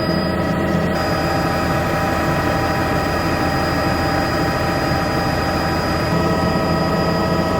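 Helicopter running steadily, a dense engine and rotor noise with a constant high whine.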